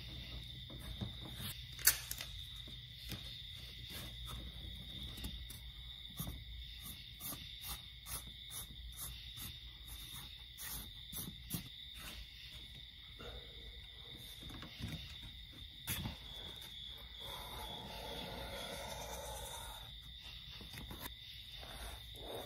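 Cardboard stencil being handled and pressed against a car's front bumper: quiet taps, scrapes and rustles of cardboard and masking tape. Late on, a couple of seconds of scratchy rubbing as a marker is drawn along the cardboard. A faint steady high-pitched tone runs underneath.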